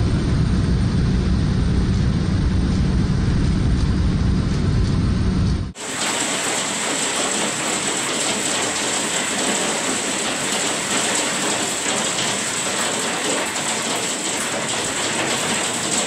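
Steady low drone of a propeller airliner heard from inside the cabin. About six seconds in it cuts off suddenly and gives way to the dense, even clatter of heavy hail pelting a glass conservatory.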